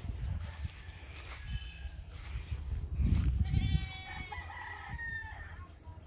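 A rooster crowing once, a single pitched call of about two seconds beginning just past the middle.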